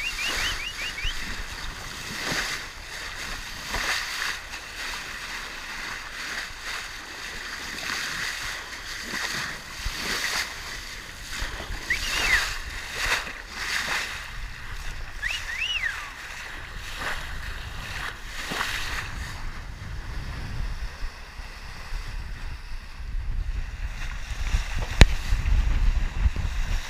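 Sea water rushing and splashing against a sailboat's hull under way, with a few short high whistling chirps. Wind buffets the microphone near the end.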